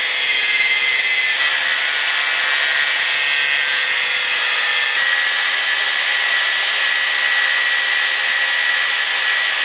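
Handheld angle grinder with a cut-off wheel cutting into a weld on the frame of a 1949 Allis-Chalmers G tractor. It runs at a steady, even pitch with a high whine throughout.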